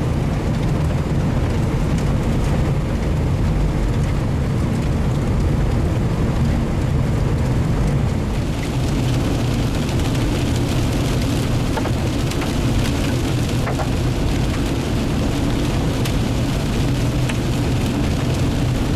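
Steady low rumble of a vehicle on the road, with rain and hail striking it. About eight seconds in, the hiss of the rain grows stronger, with scattered sharp ticks of hailstones.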